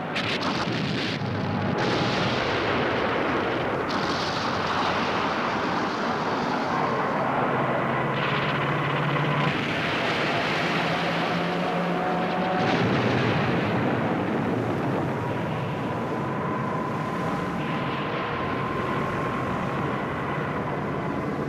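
Naval air-battle sound: aircraft engines droning under a dense, steady roar of gunfire and explosions, with a few sharp blasts in the first seconds.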